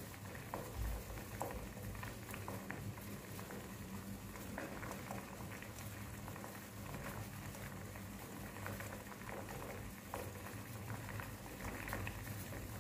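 Coconut water boiling in an aluminium saucepan on a gas burner, bubbling steadily with many small irregular pops.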